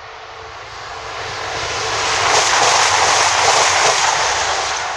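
CrossCountry Voyager diesel train passing through the station at speed without stopping: a rushing noise with a low hum beneath it that builds over the first two seconds, is loudest for about two seconds as the train goes by close, then fades near the end.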